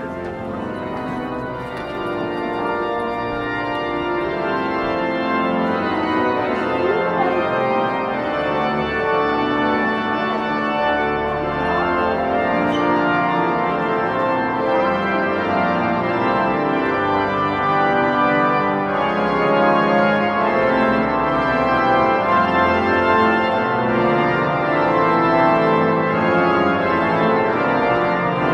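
Organ music with sustained chords and a moving melody, growing louder over the first several seconds and then holding steady.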